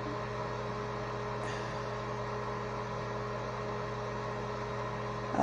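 Steady low hum with a few fixed tones under a faint hiss, like a motor or mains hum, and one faint click about a second and a half in.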